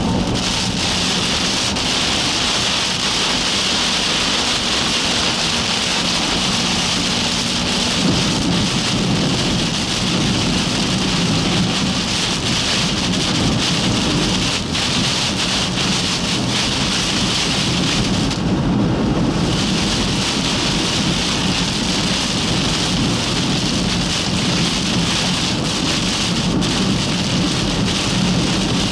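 Heavy rain hitting the windshield and roof of a car driving at highway speed in a severe thunderstorm, with road and wind noise underneath. The rain briefly drops away for about a second two-thirds of the way through, as the car passes under an overpass.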